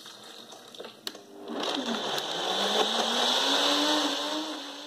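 Countertop blender: a couple of knocks, then the motor starts about a second and a half in, rising in pitch as it spins up, and runs steadily, blending a smoothie.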